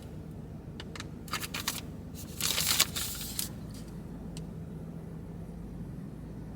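Soft plastic wet-wipes packet being handled: a few short crackles, then a louder crinkle lasting about a second, and one last tick.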